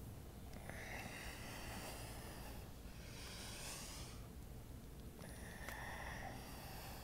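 A woman's slow, deep breaths in and out through the nose, faint and close to the microphone, three breaths in a row while she holds downward dog.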